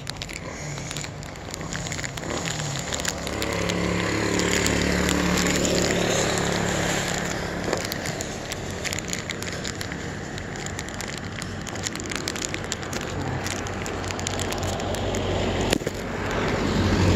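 Plastic ice cream wrapper crinkling and crackling as the bar is worked out of it. Road traffic passes behind, loudest as a vehicle goes by about four to six seconds in.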